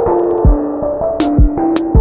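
Electronic music with a kick drum, sharp snare or clap hits and a synth bass line stepping between notes.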